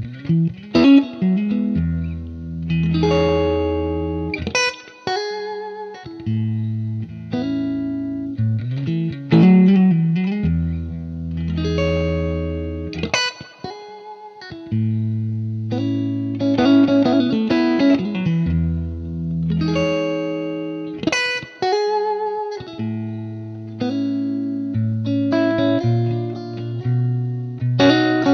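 Background music: guitar-led instrumental with an electric guitar and a repeating bass line.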